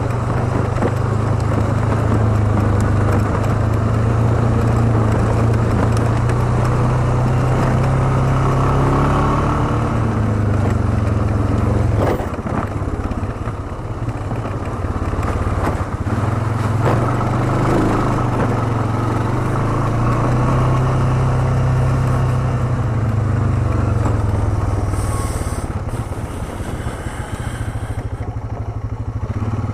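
ATV engine running steadily under way on a dirt trail, easing off briefly about twelve seconds in and again near the end, with a few knocks from the rough ground.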